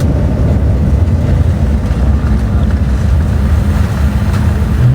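Aircraft cabin noise just after touchdown: a loud, steady low rumble of the engines and the landing roll-out on the runway.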